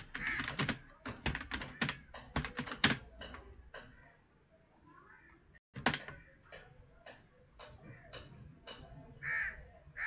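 Computer keyboard typing: a quick run of keystrokes for about three seconds, then scattered single clicks. Repeated loud calls come in near the end.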